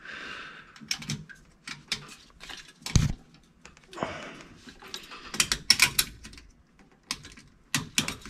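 Hand tools and small hardware being handled: scattered sharp clicks and light taps in irregular clusters, with one duller knock about three seconds in.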